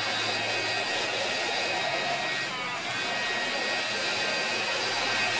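Handheld craft heat tool blowing steadily, with a low motor hum, drying the stencilled texture paste on a paper tag. Its noise dips slightly about halfway through.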